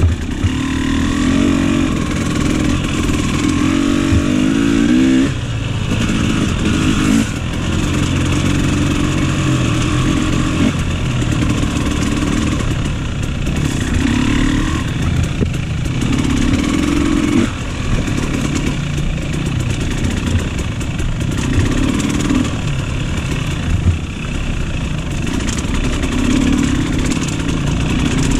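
KTM dirt bike engine running on an off-road trail, the throttle opened and closed every second or two so the engine note keeps rising and falling.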